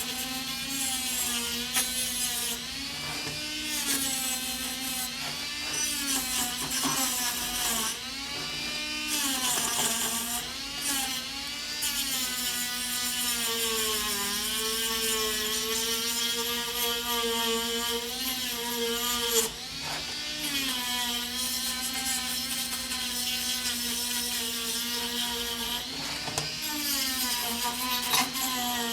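Small electric power tool running continuously, its motor pitch dipping and recovering again and again as it is pressed onto the work and eased off.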